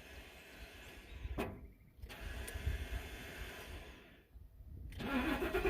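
A vehicle's faulty starter motor cranking in short attempts, broken twice by brief pauses, the engine not yet catching. The starter is a known problem the owner has still not fixed.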